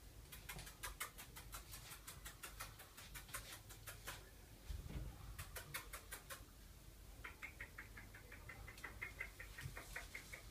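A person making quick clicking and kissing noises with the mouth to coax a hesitant dog: runs of sharp clicks at about eight a second, then a run of higher, squeaky kissing sounds near the end.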